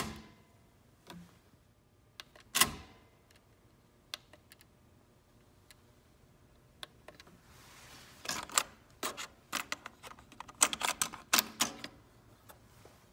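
Pioneer CT-F1250 cassette deck's transport buttons and mechanism clicking, with the cassette being handled in the tape well. There is a single sharp click a couple of seconds in, then a quick run of clicks and clacks near the end.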